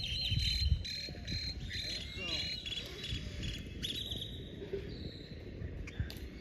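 Insects chirping in high, steady tones, with a few short looping chirps among them, over a low rumble.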